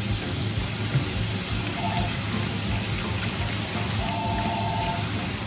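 Tap water running steadily into a sink, with background music over it; the water stops at the very end.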